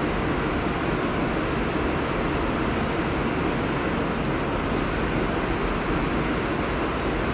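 Steady rumble of a subway train approaching slowly through the tunnel, an even noise without distinct clanks or squeals.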